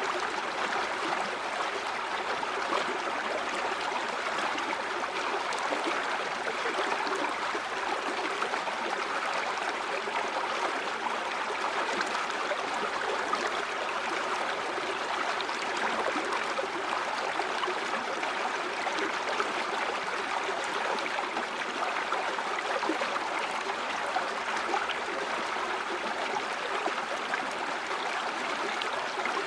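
River water flowing steadily over stones, an even rushing with small splashes and gurgles throughout.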